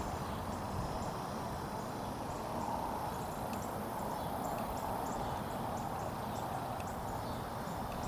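Steady rush of shallow creek water running over rocks, with faint short high ticks scattered through it.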